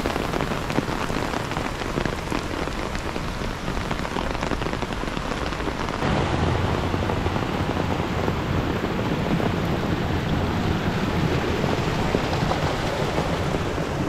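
Heavy rain pattering on a nearby surface. About six seconds in it grows louder, with a deeper rumble underneath.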